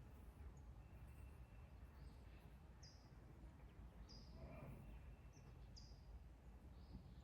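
Faint, short, high bird chirps, a few spaced seconds apart, over a low steady outdoor rumble.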